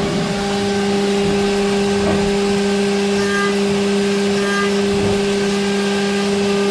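Haas CNC mill's spindle running as an end mill cuts an aluminium paintball marker body: a steady, even hum that holds one pitch throughout.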